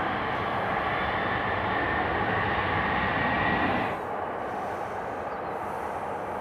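Jet engines of a Boeing 777-300ER (GE90-115B) on landing: a steady rumble with a high whine that slowly rises in pitch, then drops away suddenly about four seconds in, leaving a quieter steady rumble.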